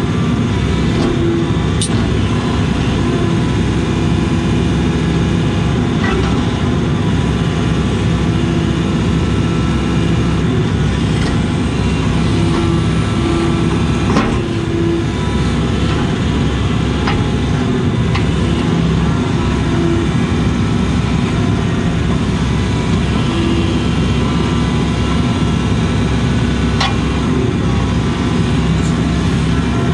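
Case CX80 excavator's diesel engine running steadily under working load, heard from inside the cab as the boom and bucket are worked, with a few faint knocks.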